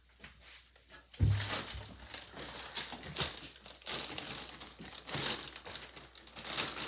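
A thump about a second in, then a plastic bag crinkling and rustling as it is handled.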